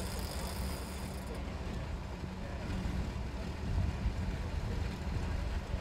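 Off-road vehicle engine running with a steady low rumble; a faint high hiss drops out about a second and a half in.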